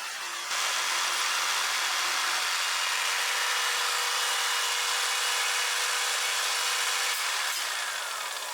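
Jigsaw mounted in a Parkside PSST A1 jigsaw table, starting up about half a second in and sawing wood with a steady, even noise. The sound eases a little at about 7 seconds and falls away near the end.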